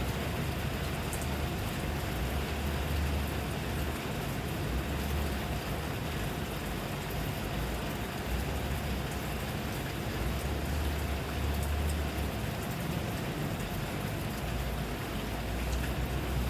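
Rain falling steadily, with scattered sharper drop ticks and a low rumble that swells and fades every few seconds.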